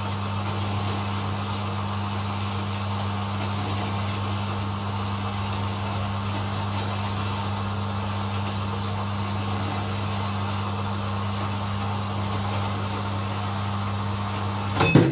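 Small horizontal metal-cutting band saw running steadily with its coolant on, cutting through steel flat bar, with a steady motor hum under the blade noise. A brief clunk near the end, then the sound stops.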